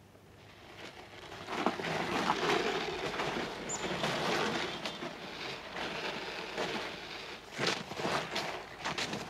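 Footsteps crunching through snow over a steady rushing noise, with the sharpest steps a few seconds apart near the start and in a quick run near the end.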